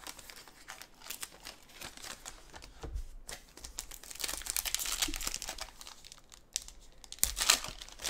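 Foil trading-card pack wrappers crinkling and tearing as they are handled and opened, in uneven crackly bursts that grow louder about halfway through and again near the end.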